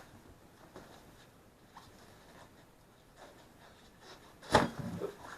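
Faint scuffing as a small lawn tractor wheel and tire are handled, then a loud cluster of thumps and knocks about four and a half seconds in as the wheel is set down and stepped on to break the tire's bead.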